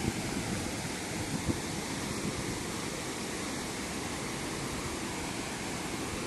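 Waterfall rushing, a steady, even roar of falling water, with a couple of brief knocks near the start.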